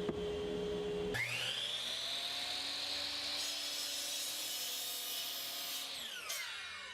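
Electric power saw spinning up about a second in to a high steady whine, its blade cutting through a wooden board, then winding down with a falling whine near the end.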